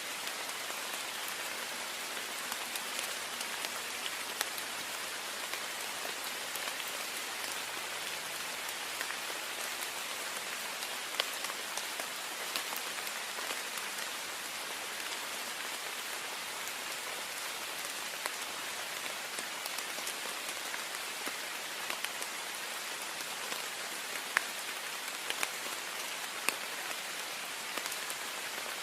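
Heavy rain falling on a window: a steady dense hiss with scattered sharper drop taps, a few louder ones standing out.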